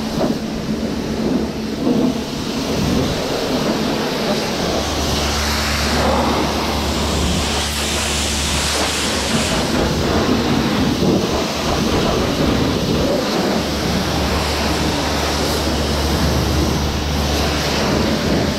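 High-pressure car-wash lance spraying water onto a car's bodywork and alloy wheels: a steady hiss of the jet with spatter off the panels. A low hum comes in twice under it.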